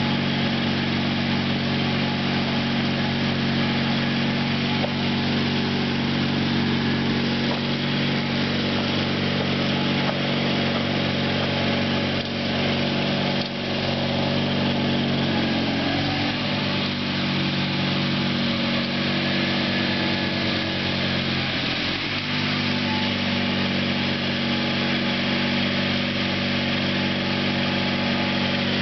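1978 Sears GT/19.9 garden tractor engine running steadily while mowing. Its pitch sags briefly twice, about halfway through and again a few seconds later, then recovers.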